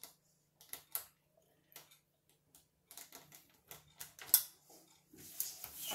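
Light, irregular clicks and taps from a small plastic toy train being pushed and pressed over rolled-out cookie dough on a silicone baking mat. A faint steady low hum runs underneath.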